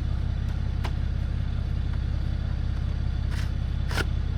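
Diesel Jeep Gladiator's 3.0 L V6 engine idling with a steady low rumble, and a few light clicks about a second in and near the end.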